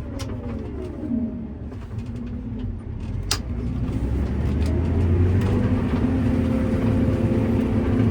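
Combine harvester running while harvesting beans, a steady machine hum that grows louder about halfway through and then holds. There is a sharp click about a third of the way in.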